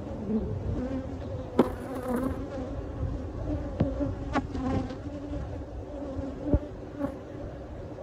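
Honeybee colony buzzing over its exposed comb: a steady hum of many wings, with a few sharp clicks scattered through it.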